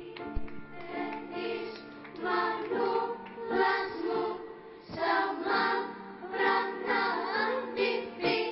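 Children's choir singing, in several short phrases.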